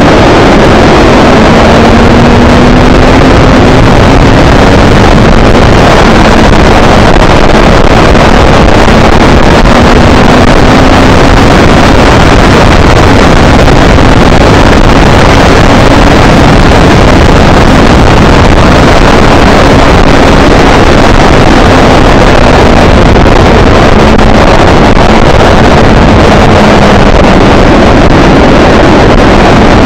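Onboard sound of a motorcycle at speed on a race track: loud wind noise on the microphone, with the engine note underneath rising and falling with the revs through the corners and the straight.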